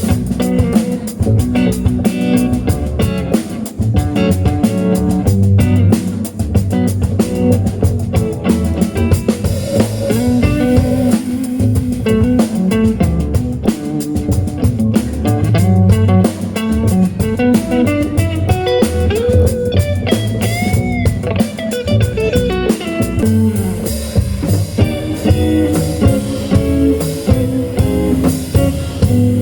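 A three-piece band playing live: electric guitar over bass and drum kit, with a steady beat.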